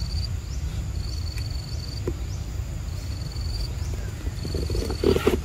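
An insect calling in high, even trills, each about a second long, repeating about every one and a half seconds, over a steady low rumble. A short, rough burst of sound comes near the end.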